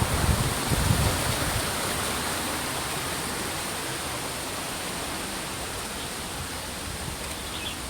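Steady rushing of a waterfall or stream, an even hiss, with low wind rumble on the microphone in the first second.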